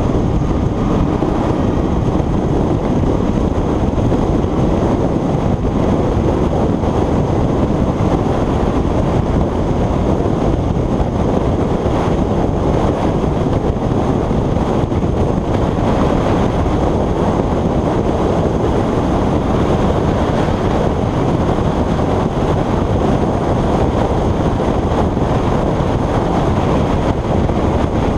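Steady, muffled wind rush on a motorcycle-mounted GoPro Hero 3+ at motorway speed, mixed with the bike's engine and tyre noise: one continuous low rumble with no break or change.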